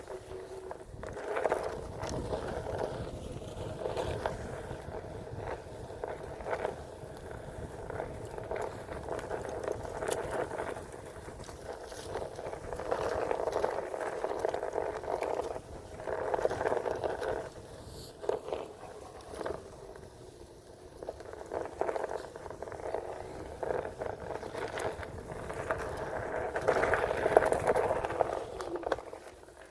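Onewheel Pint X electric board rolling along a dirt mountain-bike trail. Its tyre crackles and scrapes over the ground under a steady hum, getting louder in stretches.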